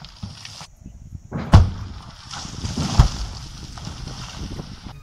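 Explosive charges going off one by one in a rock quarry face: two sharp blasts about a second and a half apart, the first the louder, followed by a hiss of falling rock and debris.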